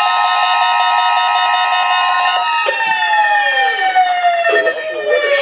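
Electronic emergency alert tone: several steady pitches held together, then about two and a half seconds in they all slide downward in pitch together, as if winding down.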